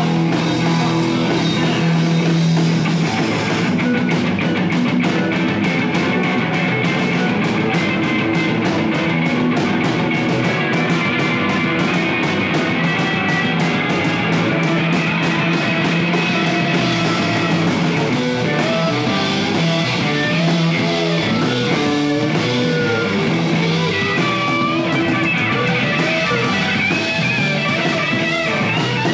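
Rock band playing live on electric guitar, bass and drum kit. Fast even cymbal strokes run from about four seconds in to about sixteen, and a melody line bending in pitch comes in during the second half.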